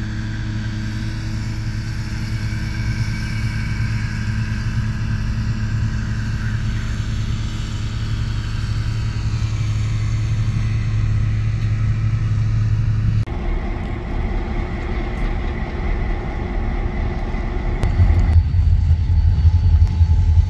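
EMD diesel-electric locomotive engines running with a steady low rumble and hum. The sound changes abruptly twice, and a deeper, louder rumble fills the last couple of seconds.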